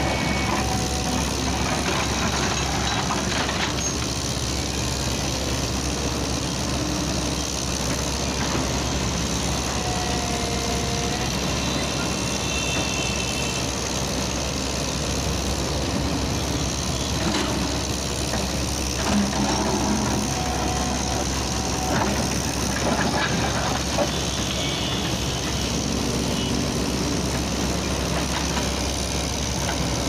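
Tracked JCB hydraulic excavator's diesel engine running steadily as it digs, with a few short knocks from the bucket and earth.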